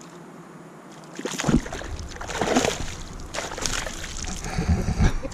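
A fish splashing and thrashing at the water surface beside a rowboat as it strikes at a topwater lure, in repeated splashes starting about a second and a half in, with a few low thuds near the end.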